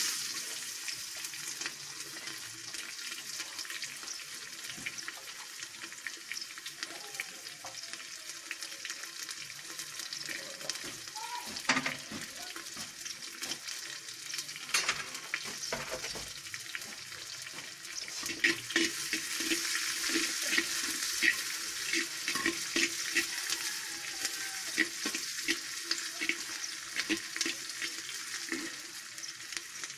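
Shallots frying in hot oil with mustard seeds and cumin in a clay pot: a steady sizzle with dense crackling, growing louder a little over halfway through. A couple of sharp knocks near the middle.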